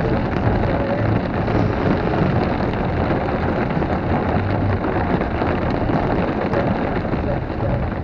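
Heavy rain falling steadily in a thunderstorm, a dense, even downpour.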